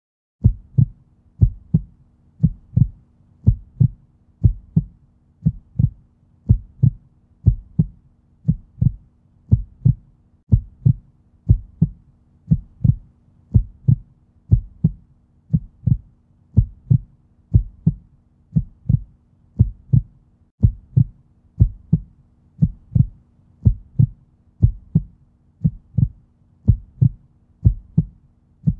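Heartbeat sound effect: steady lub-dub pairs of low thumps, about one beat a second, starting about half a second in, over a faint low hum.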